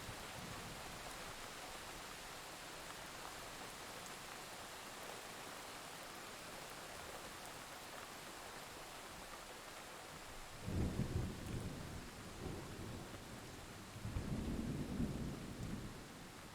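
Steady rain falling, with low rolls of thunder rumbling in twice in the second half, about two-thirds of the way in and again near the end, each lasting a second or two.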